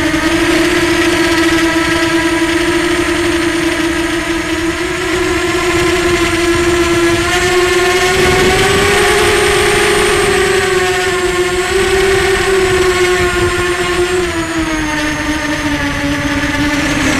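Small FPV drone's electric motors and propellers whining steadily in one pitched hum. The pitch rises a little about halfway through and falls again near the end as the throttle changes.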